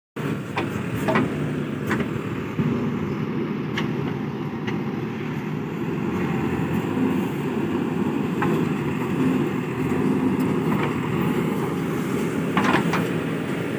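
JCB 3DX backhoe loader's diesel engine running steadily, with a few sharp knocks from the working machine scattered through, including a pair near the end.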